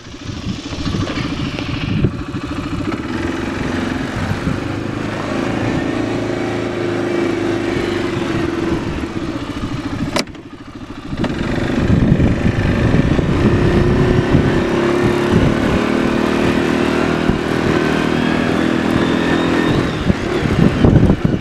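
Arctic Cat 500 ATV's single-cylinder four-stroke engine running steadily. The sound drops briefly about ten seconds in, then comes back louder.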